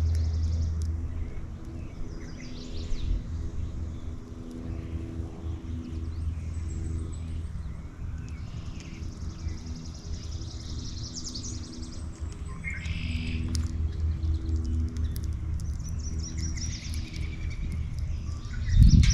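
Wild songbirds at a backyard feeder chirping and singing in short, scattered high calls and trills. A steady low mechanical hum, like a distant engine, runs underneath and is the loudest sound.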